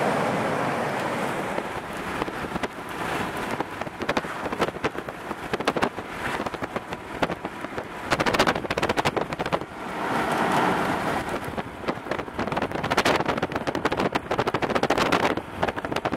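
Hail and rain hitting a moving car, a dense, irregular clatter of hard impacts that starts about two seconds in, over a steady rush of rain and road noise.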